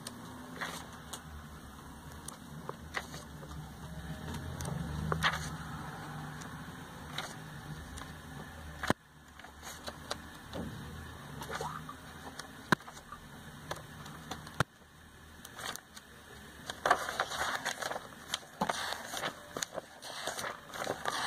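Glossy catalogue pages turned by hand: paper rustling and flicking in short scattered bursts, busier near the end. A low steady hum runs underneath and cuts off suddenly about nine seconds in.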